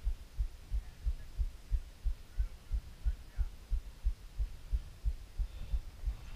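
Muffled low thumps, even and regular at about three a second, picked up by an action camera on a mountain bike being pedalled along a dirt trail, over a faint hiss.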